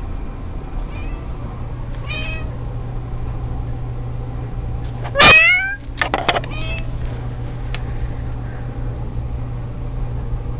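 Kitten meowing: a few short meows, then one loud meow rising in pitch about halfway, followed by a couple of sharp clicks and a few softer meows, over a steady low hum.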